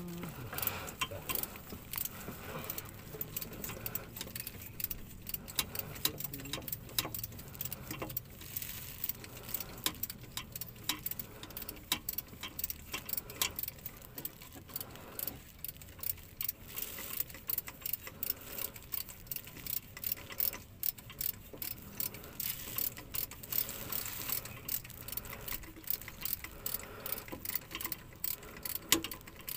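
Ratchet wrench clicking in quick, uneven runs as a bolt is turned by hand.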